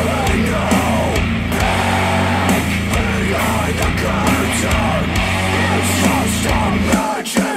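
A song with singing over a steady bass line, played back through Elac DBR62 bookshelf speakers, driven first by a Rotel A12 integrated amplifier and then by a Rega Brio. The bass drops out near the end.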